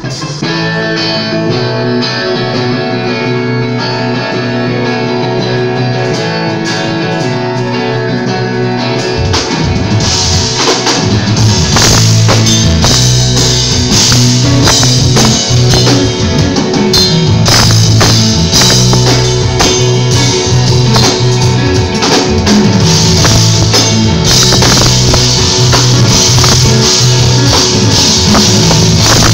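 Live rock band playing an instrumental passage: electric guitar at first, with the drum kit and bass coming in about ten seconds in and the music getting louder.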